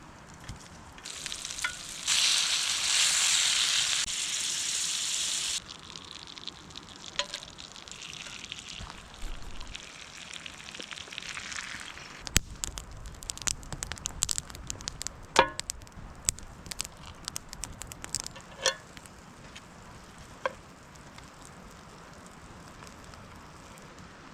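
Food frying with a loud sizzle for a few seconds, then a softer sizzle that dies away, followed by scattered sharp pops and crackles.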